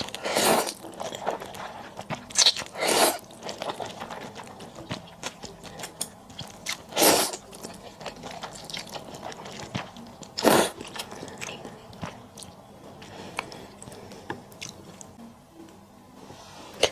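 Close-miked eating sounds: steady chewing and biting, with several louder slurps of about half a second each, typical of cold noodles (naengmyeon) being sucked up.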